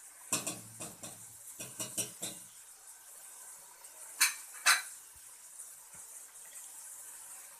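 Metal spoon and utensils clattering against a cooking pot: a run of knocks in the first couple of seconds, then two sharp clinks a moment apart. Under them runs a faint steady hiss of sugar syrup at the boil.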